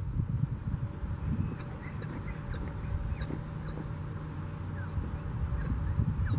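Wind rumbling on the microphone, with a bird repeating short, high, falling chirps about twice a second.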